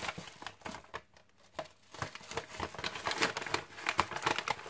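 White packing paper crackling and rustling in irregular handling noises as gloved hands pull and pull aside the paper wrapping around an item in a padded mailer. The crackles are sparse for the first couple of seconds, then come thick and fast.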